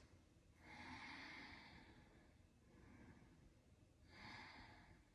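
Faint, slow, deep breaths of a person holding a yoga pose: a long hissing exhale about a second in and another about four seconds in.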